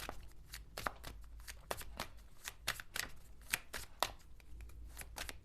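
A deck of tarot cards being handled and shuffled by hand: quick, irregular crisp card flicks and slaps, several a second.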